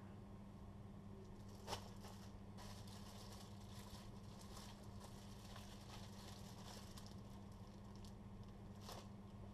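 Faint crinkling and rustling of clear plastic packaging bags being handled, with a sharper crackle about two seconds in and another near the end, over a steady low hum.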